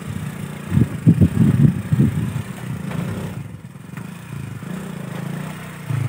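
Small Honda motorcycle engine labouring up a rocky track, surging unevenly under throttle about a second in, then running more steadily.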